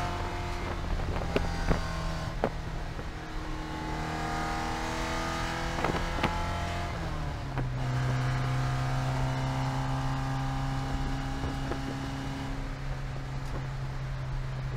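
Porsche 944 Spec race car's 2.5-litre four-cylinder engine, heard from inside the cockpit, pulling at about 5,300 rpm in third gear. About seven seconds in it is upshifted to fourth and drops to a steady lower note near 3,800 rpm. A few sharp knocks come in the first half.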